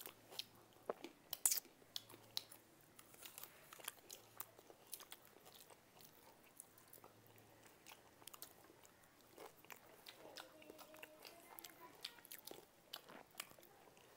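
Close-up eating sounds: people chewing and crunching food, with many short, sharp crunches and mouth clicks scattered through.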